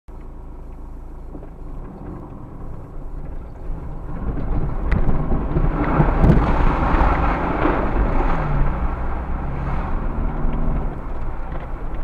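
Jeep Wrangler JK driving through a flooded creek crossing: a steady engine rumble, with water splashing and spraying against the vehicle that builds from about four seconds in, is loudest around six to seven seconds in, and then eases.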